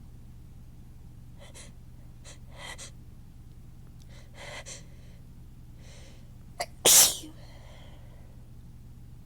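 A person's sneeze build-up: several faint breathy, gasping inhales, then a short sharp catch and one loud sneeze about seven seconds in.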